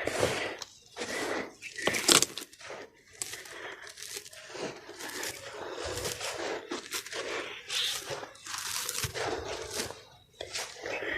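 Sand-cement block being crumbled into soft chunks: an irregular run of crisp crunches and crackles, with a few louder cracks.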